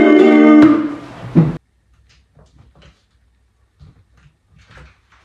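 A sung jingle ends on a long held note ('for you') that fades out about a second and a half in, with a short knock just before it cuts. After that the room is nearly quiet, with a few faint knocks and rustles.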